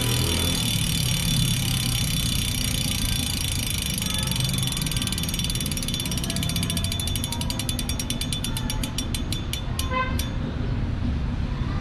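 Fulcrum Racing 4 DB rear hub freewheeling as the spinning wheel coasts down: its freehub pawls make a fast, continuous buzz of clicks that slows into separate clicks and stops about ten seconds in. A low, steady rumble runs underneath.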